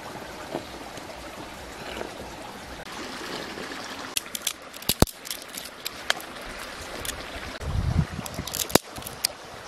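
A stream trickling steadily over rocks, with scattered sharp clicks and knocks. The loudest knocks come about five seconds in and near the end, with a low thump just before the last one.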